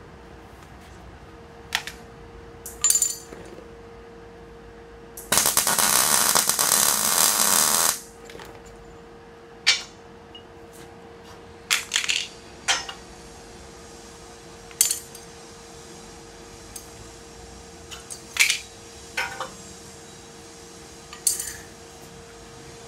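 Electric arc welding on a steel jig frame: a string of short tack welds, each a brief burst of arc noise, with one longer weld run of about two and a half seconds a few seconds in.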